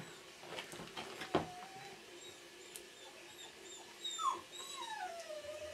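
A dog whining: a few short, high whimpers, then a longer whine that falls in pitch near the end. A single sharp click comes about a second and a half in.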